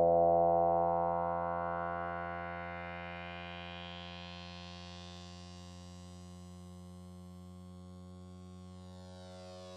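Low electronic drone held on one steady pitch, its tone brightening in a slow upward sweep over the first few seconds as it fades down, then holding quiet and steady.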